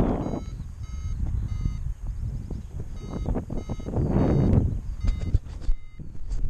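Paragliding variometer beeping in short, high, repeated tones, coming quicker about five seconds in. Wind buffets the microphone in gusts, loudest near the start and about four seconds in.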